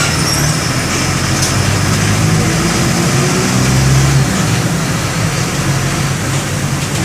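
Mercedes-Benz OM-924 LA turbodiesel, a four-cylinder inline engine, running under way in an OF-1722M bus. Its note rises a little and grows louder until about four seconds in, then drops back as it eases off.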